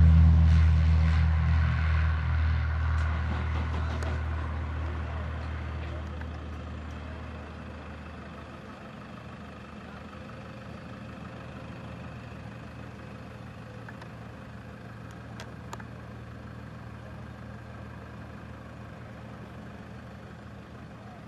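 Cessna 182P Skylane's piston engine and propeller running at takeoff power, loud at first and then fading steadily over about eight seconds as the plane climbs away, leaving a faint distant drone.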